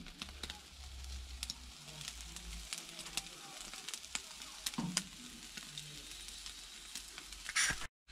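Chicken wings sizzling over a wood fire, with irregular sharp pops and crackles as their fat spits into the flames.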